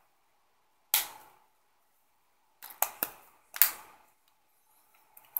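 Sharp plastic clicks from a flip phone being handled. One loud click about a second in, a quick run of three a little before the middle, another soon after, and a fainter one near the end.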